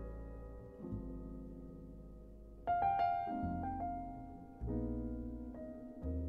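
Jazz piano playing a slow passage of chords, each struck and left to ring and fade, a new chord about every two seconds; the chord a little before the middle is the loudest, with higher notes on top.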